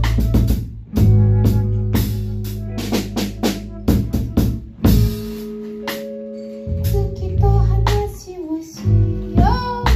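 Live band improvising: drum kit strikes and rimshots over long, deep bass notes and held pitched instrument lines, with one line sliding upward near the end.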